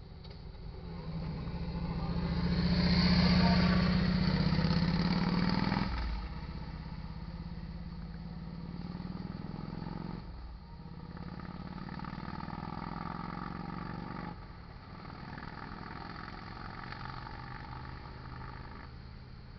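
Motorcycle passing close by, loudest a few seconds in. It then pulls away, its engine note climbing and dropping back three times as it shifts up through the gears, and fades out near the end.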